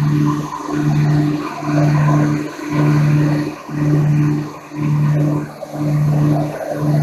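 Cabin drone of a light twin-engine piston aircraft's engines and propellers in flight, a steady low hum that swells and fades about once a second: the beat of two propellers turning at slightly different speeds, out of sync.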